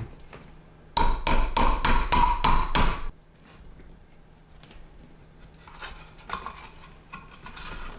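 A hammer driving new nails: a quick run of about nine ringing blows, about four a second, starting about a second in and lasting two seconds. Faint handling clatter follows later.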